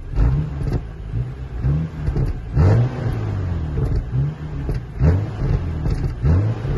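BMW 435i's turbocharged 3.0-litre inline-six on its stock exhaust, revved in a series of short throttle blips, each climbing and dropping back to idle, about one a second.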